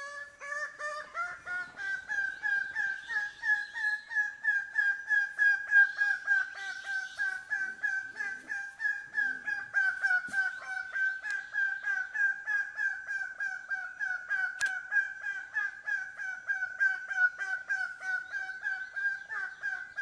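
A male lesser bird of paradise giving its mating-season display call: a long run of quick repeated notes, about three or four a second, that rise in pitch over the first two seconds and then hold steady.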